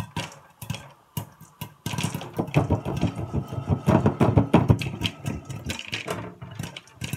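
Popcorn popping in a lidded frying pan: a stream of sharp pops. From about two seconds in to about six seconds the pan is shaken, and kernels and popped corn rattle against the pan and its glass lid.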